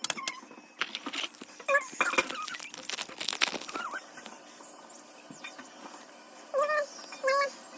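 Foil booster packs and trading cards being handled, with quick crackling and clicking, then two short high squeaks near the end.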